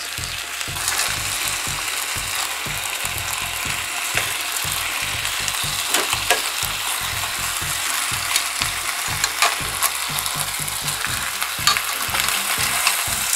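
Skin-on chicken legs and thighs sizzling steadily as they brown in their own fat in a pot. A few sharp clicks and scrapes of metal tongs turning the pieces.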